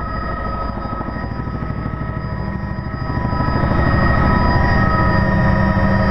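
Helicopter running on the ground just after landing: rotor blades beating fast under a steady turbine whine, growing louder about three seconds in.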